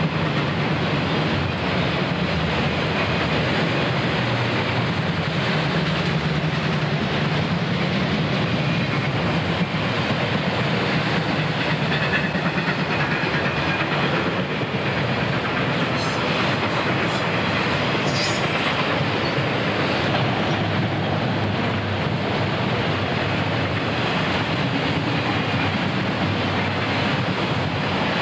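Freight train of autorack cars rolling past: a steady rumble and clatter of steel wheels on rail, with a few brief, faint high squeals a little past halfway.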